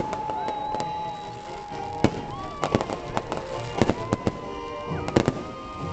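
Aerial fireworks going off: a dense, irregular run of sharp bangs and crackles, with long, held tones sounding over them.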